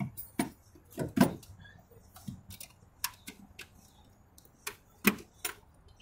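Hard plastic clicks and knocks as the engine air filter box cover is pressed back into place by hand: about ten sharp, irregular clicks, the loudest in the first second and a half and about five seconds in.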